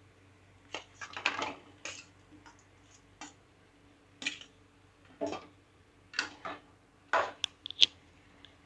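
A spatula scraping and clicking against a metal pan as fried chicken pieces are tipped and pushed into it, in a string of short scrapes and sharp taps.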